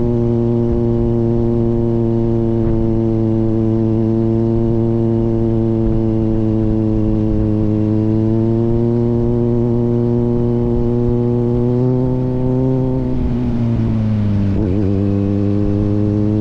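Kawasaki Z900's inline-four through an aftermarket AR exhaust, running at a steady engine speed while riding. Its pitch rises slightly partway through, then dips sharply and climbs back near the end.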